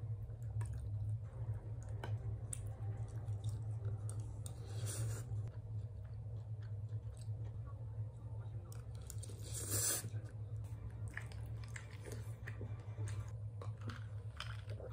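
A person chewing mouthfuls of grilled beef intestine and spicy stir-fried noodles close to the microphone, with a few faint clicks, over a steady low hum.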